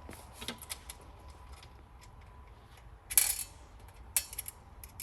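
Small metal hardware being handled: light clicks and clinks, with a louder clatter about three seconds in and a sharp knock about a second later.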